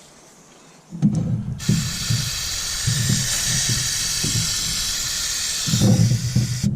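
Aerosol brake cleaner spraying in a long continuous hiss onto a side-by-side's axle end and hub, starting about a second in, with low bumps of handling underneath.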